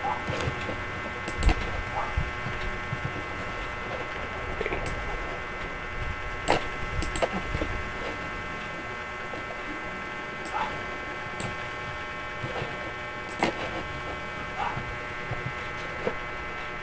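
Sharp clicks of a computer mouse and keyboard every second or few, some in quick pairs, over a steady electrical hum.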